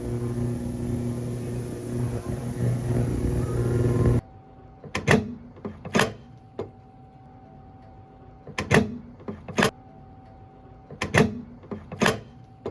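Music that stops abruptly about four seconds in. Then three pairs of sharp clicks, the two in each pair about a second apart, with a faint steady tone between the pairs.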